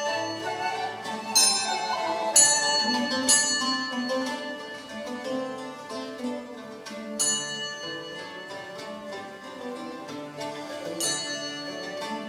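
Live medieval ensemble music: plucked lutes and a bowed vielle carry a melody, with struck bells from a bell rack ringing out several times.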